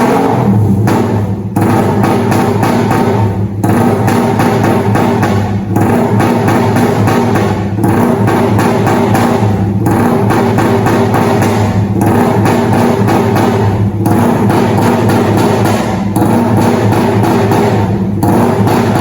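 Loud music with a drum-kit beat, played at high volume for a sound check.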